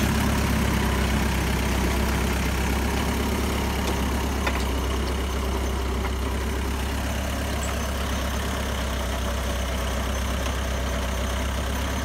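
Compact vineyard tractor's engine running steadily with a deep, even hum as it pulls an inter-row cultivator through the soil.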